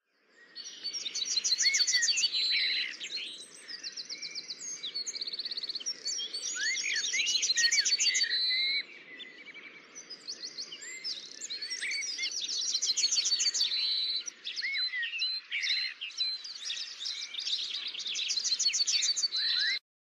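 Several songbirds singing together, a dense chorus of rapid trills and chirps over a faint low hiss. It fades in at the start and cuts off suddenly just before the end.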